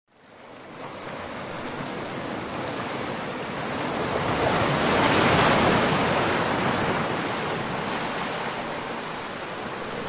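Ocean waves washing in: a steady rush of surf that fades in, swells to its loudest about halfway through, then eases back.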